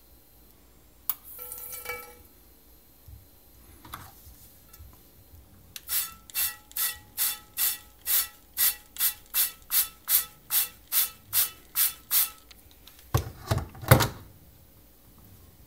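A hand trigger spray bottle squeezed about sixteen times in quick succession, roughly two and a half squeezes a second, each a short hiss of spray onto a non-stick frying pan. A few louder knocks and rubs from handling the pan follow near the end.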